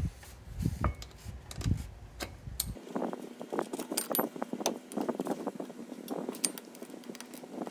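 Small hand ratchet with an E12 E-Torx socket clicking and clinking as the bolts of a drive shaft's front CV joint are loosened and spun out. Metallic clicks come sparsely at first, then in a dense, irregular run from about three seconds in.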